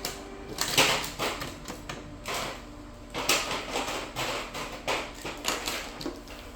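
Irregular short rubbing and rustling strokes of a quick wipe-down cleaning of an inkjet printer.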